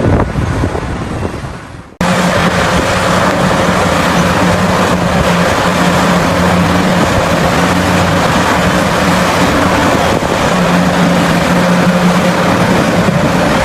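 Heavy mining machinery's diesel engine running steadily, with a low hum that comes and goes every few seconds. About two seconds in, a windy rumble fades out and the engine sound cuts in abruptly.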